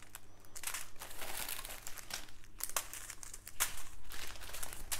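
Small clear plastic bags of diamond-painting drills crinkling and rustling as they are handled and sorted by hand, with a few sharper crackles.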